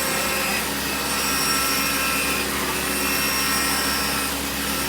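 CNC machine milling graphite: a steady machine noise with several high, steady tones running through it.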